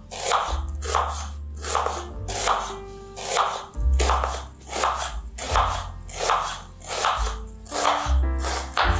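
Chef's knife slicing through an onion onto a wooden cutting board in steady, crisp strokes, about one and a half a second, over background music with a bass line.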